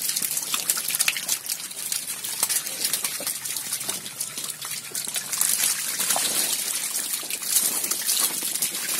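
A dense mass of catfish thrashing in shallow pond water: continuous wet splashing and trickling made up of many small splashes.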